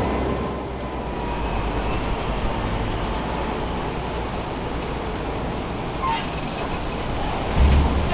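Heavy vehicle running steadily with a low engine rumble and road noise, a faint thin whine near the start, and a heavy thud near the end.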